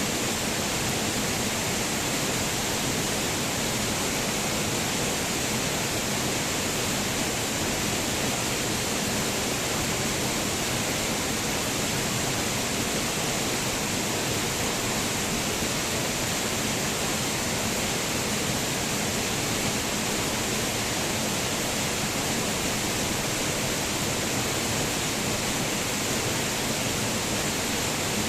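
Waterfall: falling water rushing in a steady, unbroken hiss.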